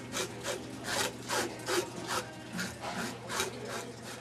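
Handheld fish scaler scraping scales off a whole salmon in quick back-and-forth strokes, a rasping scrape about three times a second.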